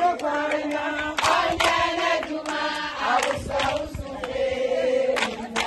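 A group of voices singing together, with hand claps.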